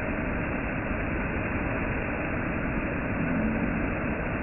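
Heavy rain falling steadily, a dense even rush of noise.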